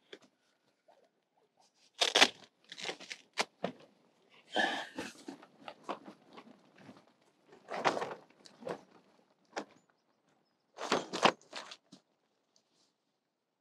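Tent door zip being unzipped and the door's nylon fabric rustling as it is pushed open, in short bursts with four louder ones and small clicks between.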